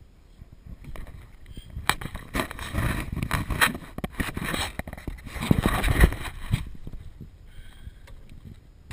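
A hooked snook thrashing and splashing at the surface beside the boat as it is grabbed by hand. There is a run of loud, choppy splashes from about two seconds in until near seven seconds, then it quiets.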